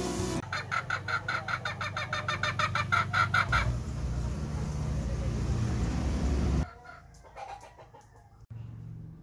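A chicken clucking in a quick run, about five clucks a second for some three seconds, then stopping. A low steady rumble follows.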